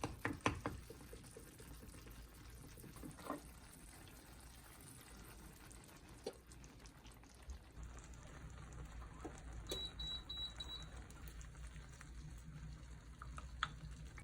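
Faint scattered clicks and knocks of small household handling over a low steady hum, with a quick run of about five high electronic beeps about ten seconds in.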